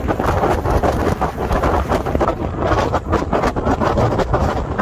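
Wind buffeting the microphone held out of a moving car's window, loud and gusty, over the car's road and engine noise.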